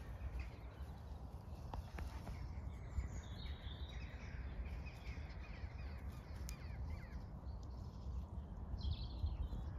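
Birds calling and chirping outdoors over a steady low rumble, with a stretch of calls in the middle and a few more near the end.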